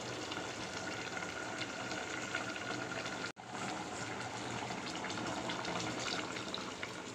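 Pot of country-chicken curry bubbling and sizzling on the stove as ground onion-tomato paste goes in: a steady hiss with fine crackles, cutting out for an instant a little over three seconds in.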